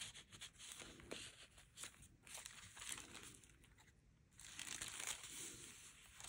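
Faint rustling and crinkling of paper as the pages and old paper inserts of a handmade junk journal are handled and turned, with small scattered crackles and a soft rustle of a page turning near the end.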